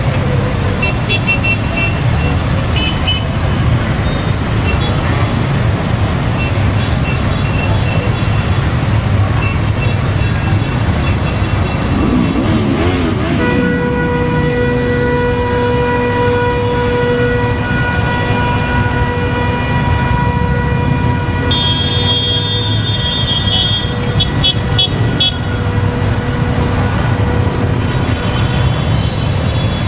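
Procession of motorcycles passing, many engines running together in a steady low rumble. About halfway one engine revs up, then a horn sounds a long steady note for several seconds, followed by shorter high toots.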